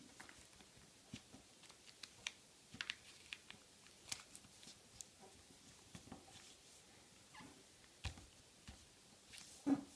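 A sheet of A4 office paper being folded and creased by hand on a wooden table: soft paper rustling with scattered light clicks and taps, a thump a little after 8 seconds and a louder knock near the end.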